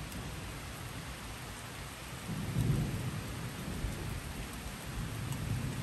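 Distant thunder rumbling low, swelling about two seconds in and slowly fading, over a steady hiss of the storm.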